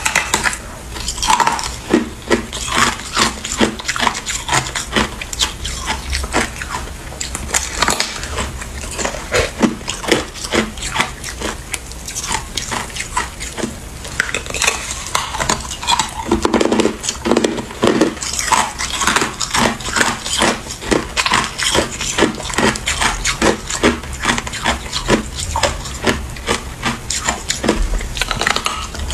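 Hard ice being bitten off a block and chewed, a dense, continuous run of sharp cracks and crunches in the mouth.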